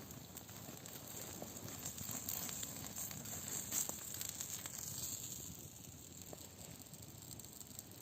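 Campfire crackling and hissing, with scattered small pops. It gets quieter after about five seconds.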